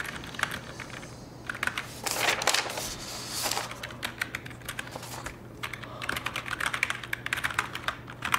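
Typing on a computer keyboard: an uneven run of quick keystroke clicks, growing denser in the second half, over a steady low hum.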